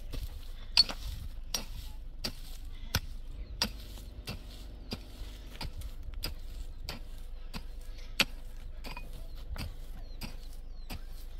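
Sharp knocks struck at an even pace, about three every two seconds, two of them louder than the rest.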